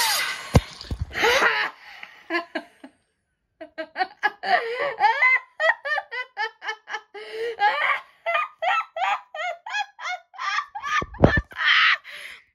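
A person laughing hard: a long run of short 'ha' bursts, about three a second, lasting several seconds, with a low thump near the end. Before it, the tail of a cartoon's soundtrack plays from a phone speaker.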